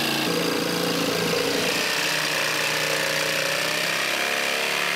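Electric jigsaw running steadily as its blade cuts through half-inch plywood.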